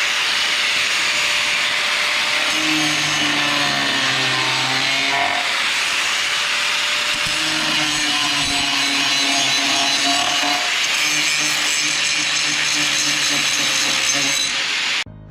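Power tool sawing, running steadily, then cutting off suddenly near the end.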